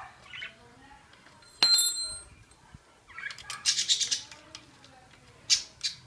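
A sharp metallic clink that rings briefly about one and a half seconds in, then a quick run of light metal clicks and rattles a couple of seconds later and a few more near the end, as a 5 mm Allen key works on the tight rear derailleur mounting bolt.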